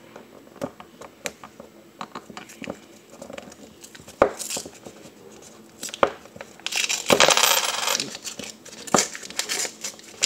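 A paper roll of nickels being torn open and unrolled by hand, the coins clicking against each other and the countertop. There are many small clicks, two sharper ones about four and six seconds in, and a longer stretch of paper tearing and rustling around seven seconds in.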